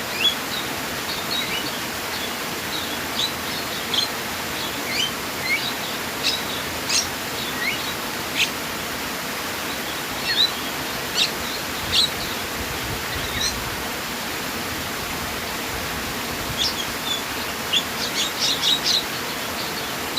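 Steady rush of flowing water with small birds chirping over it in short, high calls, scattered throughout and coming in a quick run near the end.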